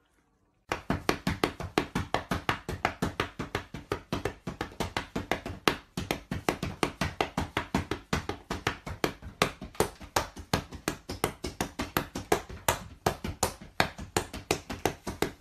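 Rapid, steady tapping or knocking, about five or six sharp knocks a second, starting abruptly about a second in and keeping on without a break.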